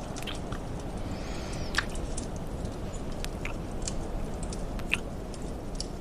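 Close-up wet kissing: a scattering of short lip smacks and mouth clicks, over a steady low background hiss.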